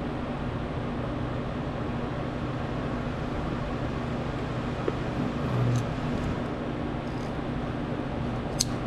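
A steady low mechanical hum, with a few faint clicks, the clearest near the end.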